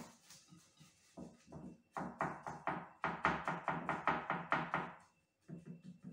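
Cling film pressed and smoothed down by hand onto a glass bowl: a sharp click at the start, then a quick run of soft crinkling taps, about five a second, lasting around three seconds.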